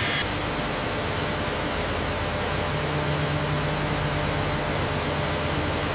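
Steady mechanical hiss and hum of factory machinery. A low droning hum comes in about two and a half seconds in.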